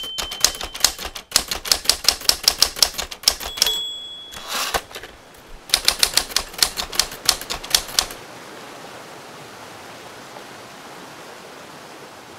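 Typewriter sound effect: a rapid run of key clacks, a short ding and a brief whoosh like a carriage return, then a second run of keystrokes. A faint steady hiss fills the last four seconds.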